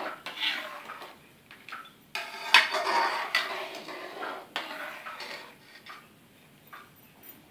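Perforated metal ladle scraping and clinking against a metal kadhai while stirring a watery mix of semolina and sugar syrup, in irregular bursts that die down over the last second or so.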